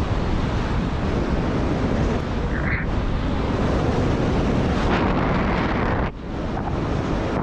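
Wind rushing over the camera's microphone as the paraglider flies, a steady loud buffeting that briefly drops away about six seconds in.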